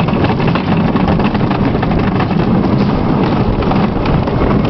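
Wooden roller coaster train running on its track: a steady, loud rumble full of rattling wheel clatter, with wind on the microphone.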